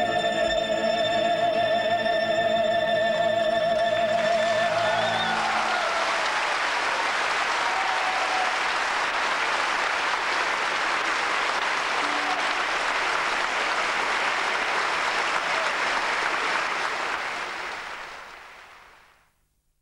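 An operatic singer holds a final high note with a wide vibrato over instrumental accompaniment, ending about five seconds in, followed by audience applause that fades out near the end.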